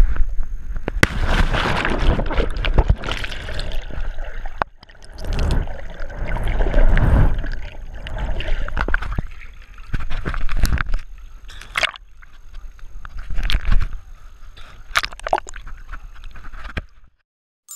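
A person plunges into the sea from a rock jump: a loud splash about a second in, then churning underwater bubbling and gurgling, and water sloshing close by after surfacing. The sound cuts off suddenly near the end.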